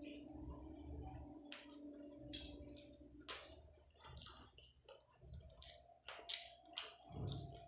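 Close-miked wet mouth sounds of a person eating chicken in green masala by hand: lip smacks, sucking and chewing, heard as a string of short wet clicks and squishes that come more often after the first few seconds.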